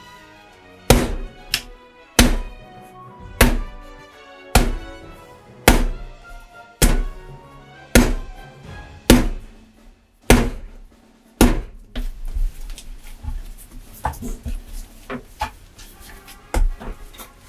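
A ball of bread dough thumped down onto a wooden cutting board while being kneaded: ten heavy thuds about once a second, then softer, irregular knocks over the last few seconds. Background music plays throughout.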